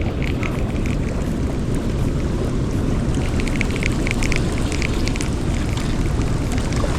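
Water rushing out through a dam spillway during a flood release: a loud, steady rush with no let-up.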